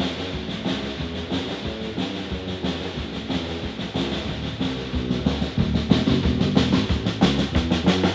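Live dance band playing through the PA at a soundcheck: a drum kit keeps a steady beat under bass, guitar and keyboard, growing a little louder about five seconds in.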